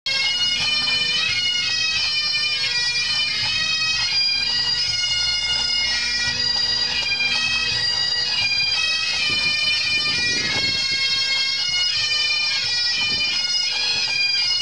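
Great Highland bagpipes playing a tune, the chanter notes moving over a steady unchanging drone.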